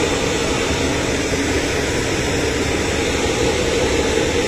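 Steady, even running noise of a parked private jet on the apron, a continuous rumble and hiss with no breaks.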